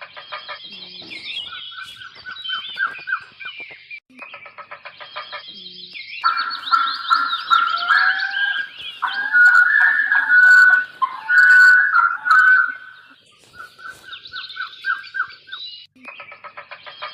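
Birds calling: many short chirps, quick gliding whistles and rapid pulsed trills, several voices overlapping and loudest around the middle. One pulsed call pattern comes back three times, at the start, about four seconds in and near the end.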